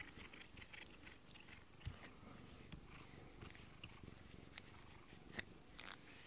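A domestic cat purring faintly while being stroked, with soft rustles and small clicks of hand on fur.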